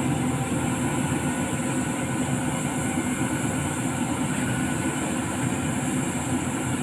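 CAT 320D hydraulic excavator's diesel engine running steadily.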